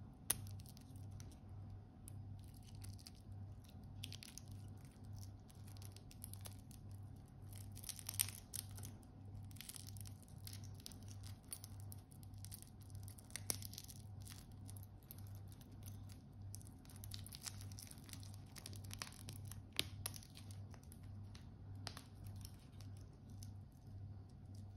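Clear plastic protective film crinkling and tearing as it is peeled off a stainless steel watch bracelet and its clasp, with a few sharp clicks. A low hum pulses about twice a second underneath.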